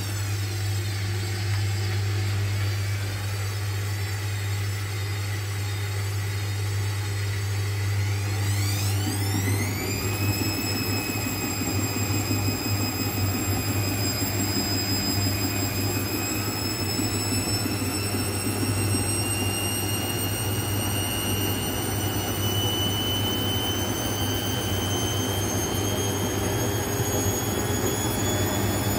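Hotpoint front-loading washing machine's drum motor whining over a steady low hum. The whine rises sharply about a third of the way in as the drum speeds up, then keeps climbing slowly, while the drum is heavily oversudsed (a suds lock).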